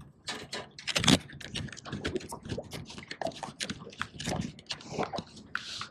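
Irregular clicks, knocks and scrapes of gear being handled, a dozen or more sharp taps spread unevenly.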